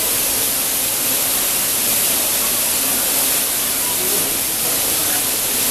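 Torrential rain and water pouring off the station roof, splashing across a flooded railway platform: a loud, steady, dense hiss with no breaks.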